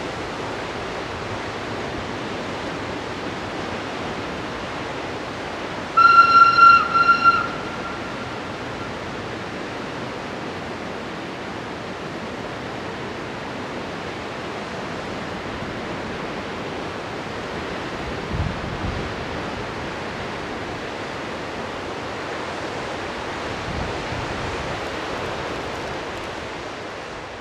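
Diesel locomotive horn of the MGB HGm 4/4 61 sounding one single-pitched blast of about a second and a half, over the steady rushing of the river.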